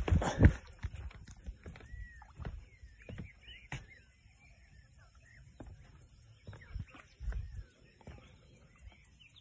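Two heavy thumps at the start as a person climbs down off a wooden fence, then scattered light knocks, a low thump about seven seconds in, and small birds chirping now and then.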